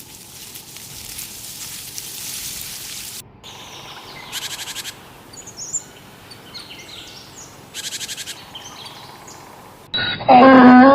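Outdoor ambience with faint hiss, and birds chirping from a few seconds in, including two rapid trills. About ten seconds in, a sudden loud animal roar cuts in.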